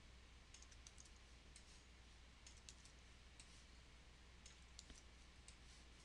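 Faint, irregular clicks of a computer mouse and keyboard, a dozen or so, as a box is copied and pasted over and over, over a steady low hum.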